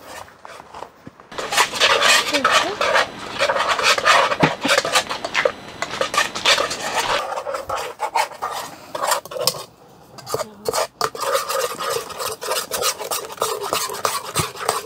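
Spoon stirring tonkatsu batter mix and water in a bowl, with quick repeated scraping and clinking against the bowl. The stirring is most vigorous in the first half, eases off, pauses briefly and picks up again near the end.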